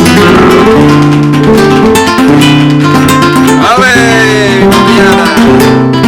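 Background music led by plucked and strummed acoustic guitar in a flamenco style, with a falling pitch glide a little past the middle.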